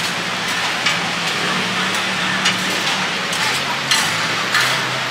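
Metal spoon and fork clinking against a ceramic plate a few times, over a steady hiss of busy street-stall background noise.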